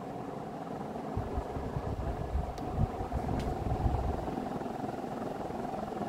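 Vintage Leslie-Locke 'Play-It-Again-Sam' 48-inch spinner ceiling fan with an Evergo-built Union motor, running on high with a steady hum. Irregular low rumbling is strongest from about one to four and a half seconds in, with two faint ticks near the middle.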